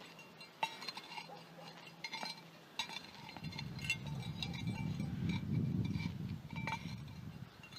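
Scottish Highland cow grazing in snow: irregular crunches and clicks as she digs through the snow and tears up grass. A low rushing noise swells from about three seconds in and fades near the end.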